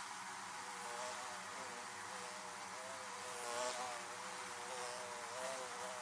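Honeybees buzzing at a wooden hive's entrance: a steady hum of many overlapping wing tones that waver in pitch. The sound swells briefly twice, about three and a half and five and a half seconds in.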